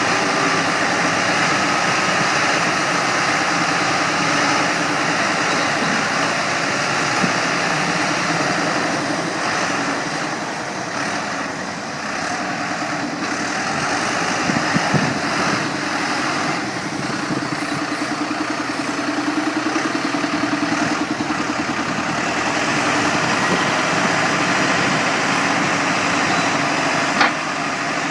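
Backhoe loader's diesel engine running steadily, easing off briefly and picking up again partway through, with a single sharp click near the end.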